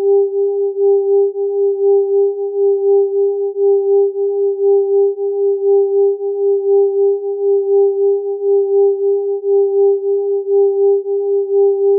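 Electronic sine tones beating against each other: a steady mid-pitched tone with a fainter one above it, swelling and fading evenly about three times a second as the close frequencies interfere.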